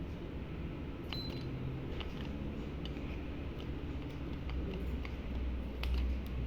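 Daikin air conditioner running with a steady hum, light ticks and clicks every half second or so, and a low rumble that grows stronger about two-thirds of the way through.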